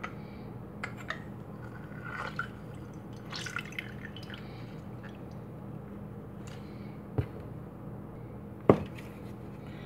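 Lemon juice dripping and squishing out as a lemon half is pressed in a handheld lemon squeezer over a ceramic ramekin, with small scattered clicks from the squeezer. A single sharp knock sounds near the end.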